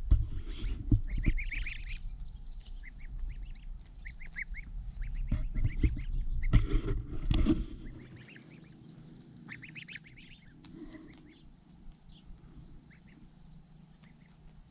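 Month-old goose goslings peeping in short high calls while grazing, the calls coming in clusters and thinning out after about eight seconds. A low rumble and a couple of knocks ride under the calls in the first half.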